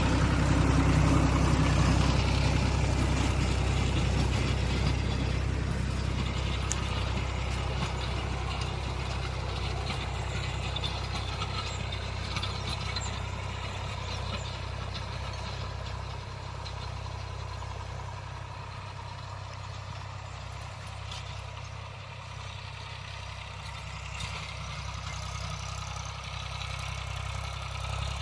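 Massey Ferguson tractor's diesel engine running steadily, loudest at first and growing gradually quieter.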